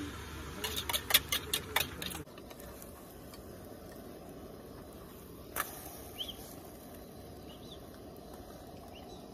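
A metal whisk taps quickly against the rim of a bowl, about eight sharp clicks in the first two seconds, as beaten eggs are poured into a frying pan. Then a steady soft hiss comes from the eggs cooking in the pan on a propane camp stove, with a single knock of the spatula against the pan about halfway through.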